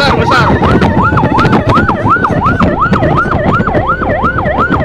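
Fire engine siren on a fast yelp, sweeping up and down about three times a second over the low rumble of the moving truck. A second siren overlaps it for the first half second.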